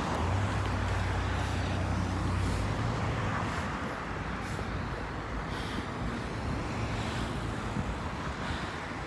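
Road traffic noise: a motor vehicle's engine hums low as it passes in the first few seconds, with a fainter one around two-thirds of the way through.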